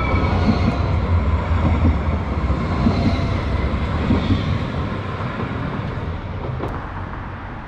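Modern electric low-floor tram (CAF Urbos) passing close by, a loud low rumble and rush of wheels on rail that fades slowly as it goes past.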